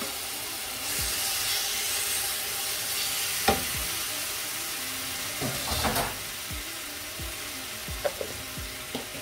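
Marinated chicken pieces sizzling in hot oil in a non-stick skillet over a high gas flame. A wooden spatula knocks against the pan a few times as the chicken is stirred.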